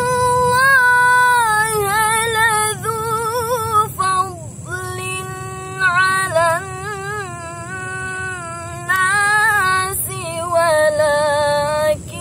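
A young woman reciting the Qur'an in Arabic in the melodic tilawah style, holding long notes and ornamenting them with wavering turns. She breaks off briefly for breath about four seconds in.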